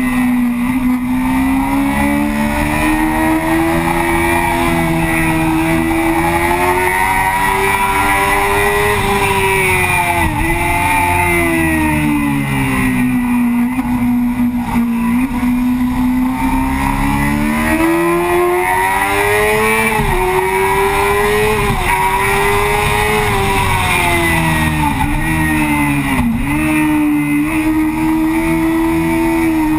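Yamaha FZ6's 600 cc inline-four engine running hard at high revs, heard from the fuel tank. Its pitch rises and falls steadily through the corners, with a few quick dips in pitch at gear changes.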